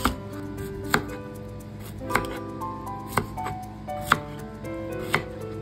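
Kitchen knife cutting through king oyster mushrooms onto a wooden cutting board: about six sharp knocks, roughly one a second, over soft background music.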